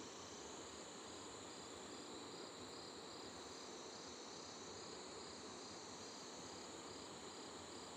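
Faint, steady insect chirring, with a high chirp pulsing about three times a second over an even hiss.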